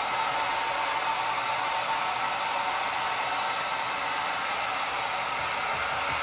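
Handheld hair dryer running steadily, blowing on wet hair: an even rush of air with a faint steady motor whine.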